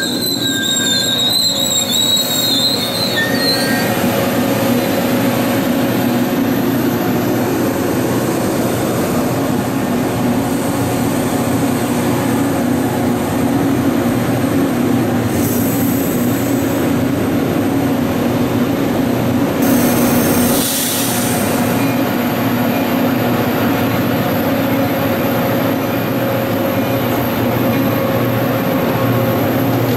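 MBTA commuter train coaches rolling past, a steady rumble of steel wheels on rail. Wheels squeal at a high, wavering pitch for the first few seconds. A short hiss comes about twenty seconds in.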